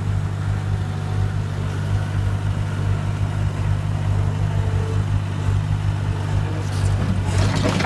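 Skid-steer loader's engine running steadily with a low drone as the machine drives. In the last second or so, a rattling scrape as its bucket meets broken stone and rubble.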